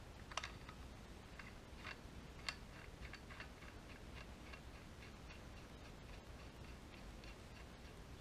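Faint light metal clicking as a nut is spun by hand onto the harmonic balancer installation tool's threaded rod: a few sharper clicks in the first few seconds, then small even ticks about three a second.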